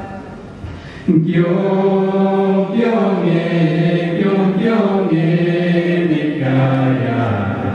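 Voices singing a slow hymn-like chant in long held notes that step from pitch to pitch. A softer passage fades at the start, then a louder phrase begins about a second in.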